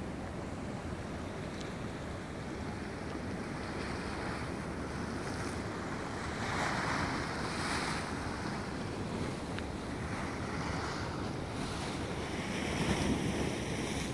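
Sea waves washing against rocks at the foot of a cliff, with wind buffeting the microphone. The wash swells louder about halfway through and again near the end.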